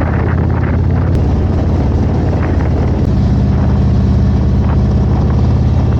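Harley-Davidson Road Glide's V-twin engine running steadily while riding, with road and wind noise. The engine note picks up a little about halfway through.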